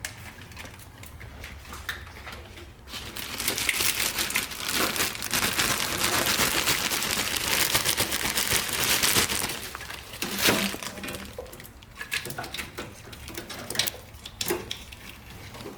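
Plastic crinkling and crackling as it is handled, dense and busy for about seven seconds starting about three seconds in, with scattered clicks and knocks before and after.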